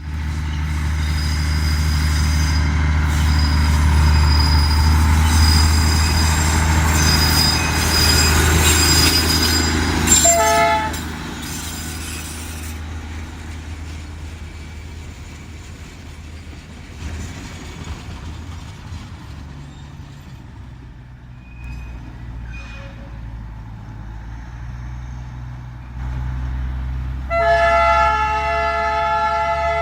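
Darjeeling Himalayan Railway toy train running, with a heavy rumble and a high thin squeal from the wheels. It gives a short toot about ten seconds in, runs on more quietly, and gives a long, multi-tone blast of its horn near the end.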